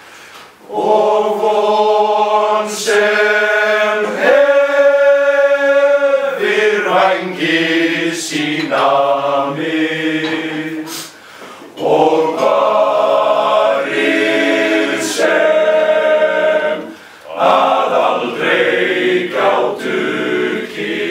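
Male voice choir singing unaccompanied, in long held phrases with brief pauses between them.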